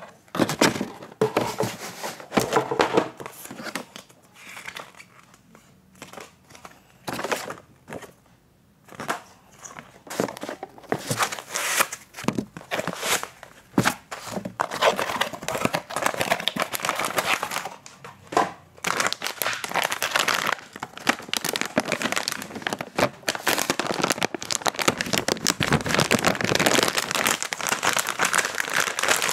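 Packaging being handled, with irregular rustling and crinkling throughout: paper leaflets and a cardboard box at first, with a quieter stretch about five to ten seconds in. It turns to dense crinkling of the plastic anti-static bag around a graphics card through roughly the last ten seconds.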